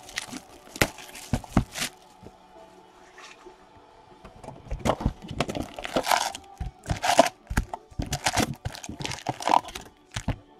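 Trading card box being opened and its foil card packs handled: sharp cardboard crackles and tearing, then a dense run of crinkling and clacking wrappers about halfway through as the packs are pulled out and stacked.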